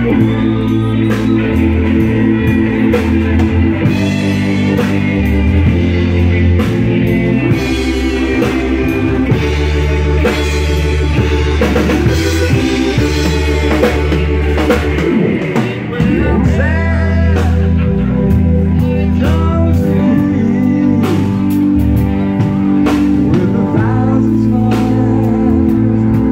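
Live rock band playing: electric organ chords held and changed every second or two over a steady drum-kit beat, with electric guitar, and a wavering glide of notes about two-thirds of the way through.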